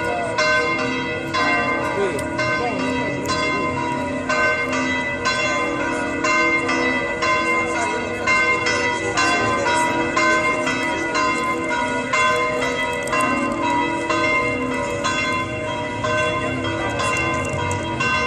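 The bells of St. Peter's Basilica pealing together, several bells of different pitches struck in quick, overlapping succession so that the ringing never dies away.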